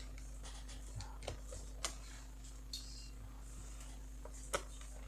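Scattered small clicks and taps of a screwdriver on the screws and metal heatsink inside an opened laptop, the sharpest about two seconds in and again near the end, over a steady low hum.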